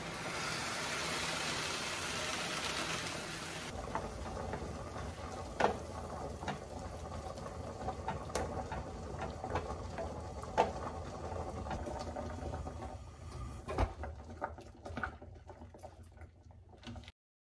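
Sizzling as defrosted tomato pulp goes from a freezer bag into a hot pan of softened onions, which stops after a few seconds. Then a wooden spoon stirs the tomato in the stainless-steel pan with a few sharp knocks against the pan.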